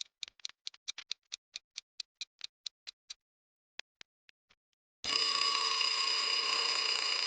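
Countdown clock sound effect ticking at about four ticks a second, thinning out after about three seconds. About five seconds in, an alarm-clock bell rings steadily to signal that time is up.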